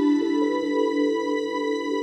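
Soft new-age background music with sustained, ringing tones.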